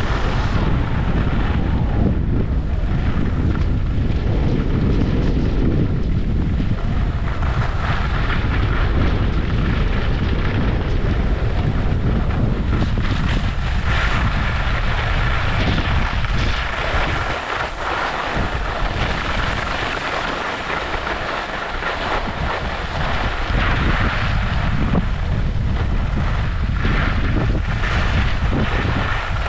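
Wind buffeting the microphone of a moving skier, over the hiss and scrape of skis running on packed, tracked snow. Around 17 to 23 seconds in the wind rumble drops off and the hiss of the skis comes through more clearly.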